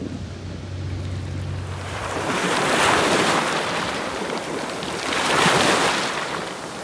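Small sea waves breaking and washing over a pebble beach, in two surges: the first about three seconds in, the second near five and a half. A low steady hum sits under the opening two seconds.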